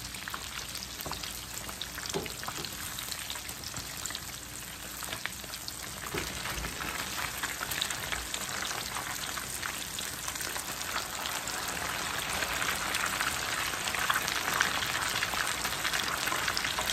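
Battered tilapia fillets frying in hot oil in a pan: a steady sizzle thick with crackles and pops, growing louder over the second half.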